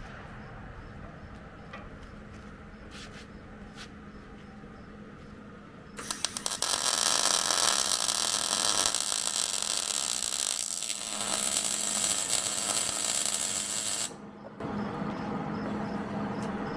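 Wire-feed (MIG) welder arcing on a steel race-car control arm. About six seconds in, the arc sputters on a few times, then crackles steadily for about eight seconds and cuts off abruptly. It is filling in metal that was ground out around a relocated bushing sleeve.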